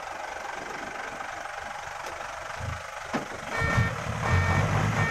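Diesel engine of an Isuzu Forward dump truck idling, then running louder about three and a half seconds in as the truck is put into reverse in deep mud. A reversing alarm starts beeping at the same moment, repeating about once a second.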